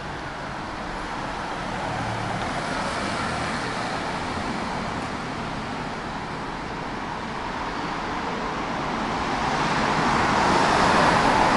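Road traffic on a city street: a steady rush of passing cars that grows louder near the end.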